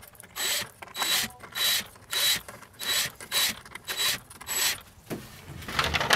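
Cordless drill running in short, evenly spaced bursts, about two a second, backing screws out of a strip of foam core; a few knocks near the end.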